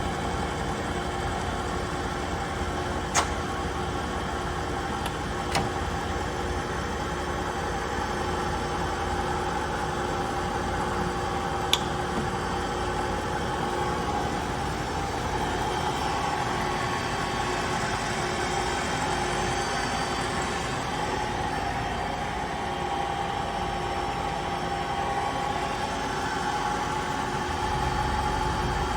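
DoAll 13-inch engine lathe running under power: a steady mechanical hum with a whine of gears. Three sharp clicks or ticks are heard in the first half.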